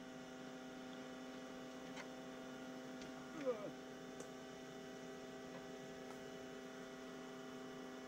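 Honeybees buzzing around an opened colony: a steady, even, low hum.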